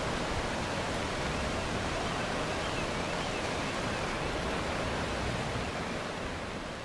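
Floodwater rushing through a city street, a steady heavy noise of fast-moving water that fades away toward the end.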